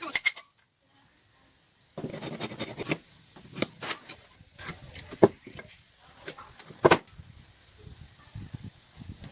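Hand woodworking sounds: scattered sharp knocks and taps on wood with rubbing and scraping between them, after a brief near-silent gap near the start.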